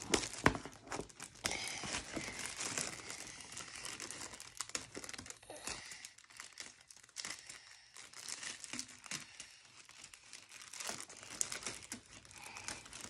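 Clear plastic shrink-wrap crinkling and tearing as it is cut with scissors and pulled off a box by hand. The crackling is busiest in the first few seconds, then turns into softer, scattered crinkles.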